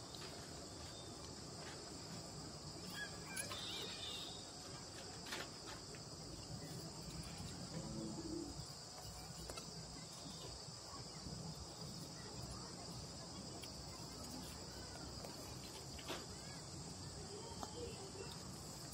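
Faint outdoor ambience: a steady, high-pitched insect chorus, with a few faint distant calls and clicks.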